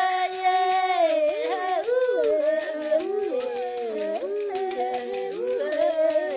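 Background music: several voices singing together in harmony over light, evenly spaced percussion.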